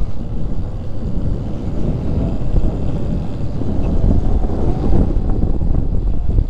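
Wind buffeting the microphone of a moving motorcycle, a steady low rumble of wind and road noise.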